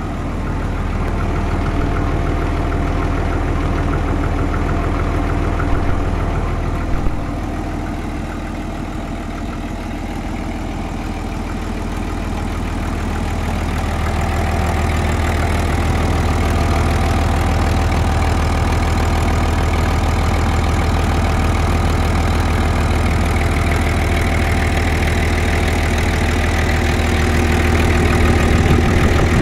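Denyo diesel generator's six-cylinder Hino engine running steadily, purring, freshly serviced with new oil, filters, radiator hose and fan belt. It grows louder about halfway through and again near the end, with a couple of brief clicks about six and seven seconds in.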